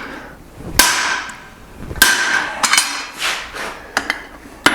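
Hand hammer striking a blacksmith's guillotine tool over hot steel: several blows roughly a second apart, each ringing briefly like struck metal, the later ones lighter.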